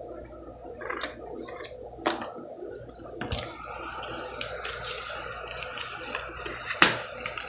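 Cardboard-and-plastic blister packaging of a pocket knife being handled: crinkling, rustling and clicking, with one sharp crack near the end.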